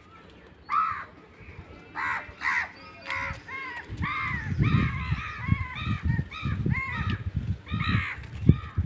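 Crows cawing over and over, short arched caws, a few at first and then about two a second from about four seconds in. Low rumbling thumps run underneath, with one sharp thump near the end.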